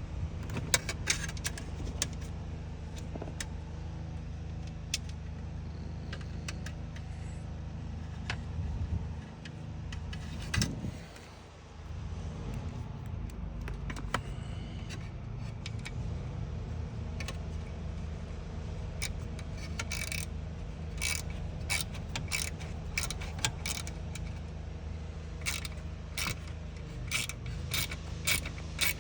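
Socket ratchet clicking as a seat bolt is run in: scattered metal clicks and clinks at first, then a steady run of quick ratchet clicks through the last ten seconds, over a steady low hum.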